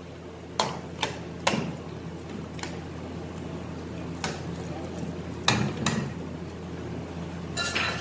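Metal slotted spatula knocking and scraping against a steel cooking pan while stirring a simmering curry: scattered sharp clinks, irregularly spaced, over a steady low hum.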